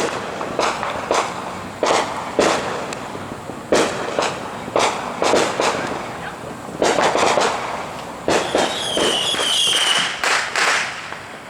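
Consumer fireworks going off around a neighbourhood: an irregular string of sharp bangs, each trailing into echo, with a dense cluster about seven seconds in. Near the end a whistling firework adds a shrill tone that wavers and falls slightly.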